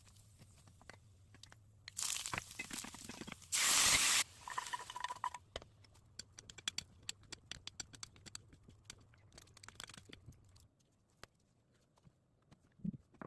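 Food-preparation handling noise: about a second and a half of rustling, then a louder half-second hiss, followed by scattered light clicks and taps.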